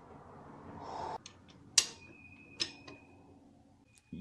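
Metal tools and engine parts clinking against each other during an engine teardown: a few sharp metallic clicks, the loudest just before the middle, one leaving a brief high ringing tone, after a soft rushing sound in the first second.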